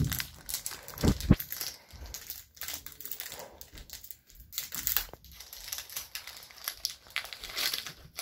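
Foil wrapper of a Pokémon Sword and Shield booster pack crinkling as it is handled and opened by hand, in irregular crackles, with a few dull thumps near the start.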